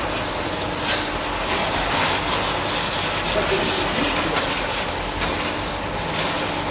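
Pipe-inspection line running in a factory: a steady mechanical noise with a low hum and light rattling while sensor heads with metal rollers ride on an insulated pipe.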